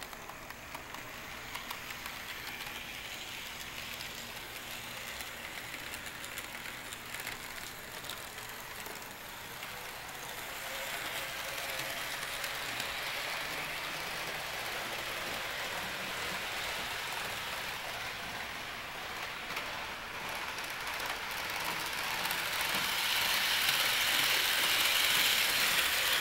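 HO-scale model hyrail truck on a Stanton power drive with brass gears running along the track pulling a string of hopper cars: a steady motor-and-gear whir with a dense ticking of wheels on the rails. It grows louder about ten seconds in and is loudest near the end as the train comes close.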